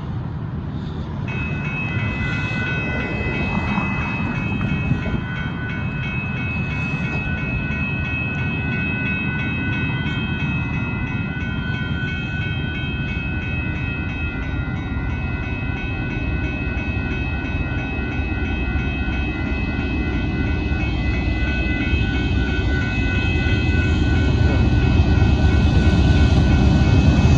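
Union Pacific freight train (a loaded sand train) approaching the grade crossing, its low rumble growing louder toward the end. A steady high ringing of several tones sounds over it from about a second in.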